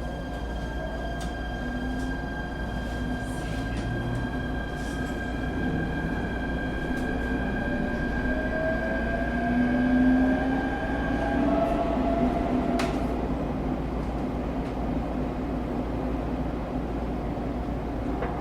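Inside a JR East Shinetsu Line local train gathering speed after leaving a station: a steady low rumble of the wheels on the track under a whine from the traction motors that slowly rises in pitch. A steady high tone stops about eleven seconds in, and there is one sharp click a little later.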